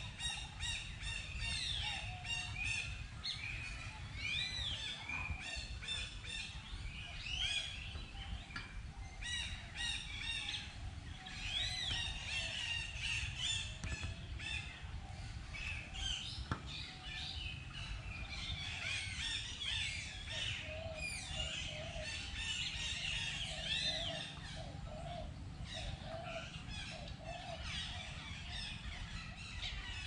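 Several birds chirping and calling at once: many short whistled notes that sweep up and down, mixed with rapid repeated notes, over a low steady rumble.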